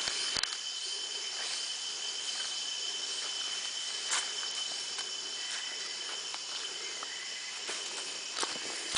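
A steady chorus of jungle insects: a high, even whine and hiss. A few footsteps on the forest trail sound now and then.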